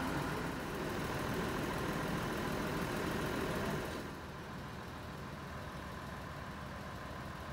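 Fiat M4 diesel railcar's engine idling at a standstill, a steady running sound with a faint constant whine. About four seconds in it drops to a quieter level.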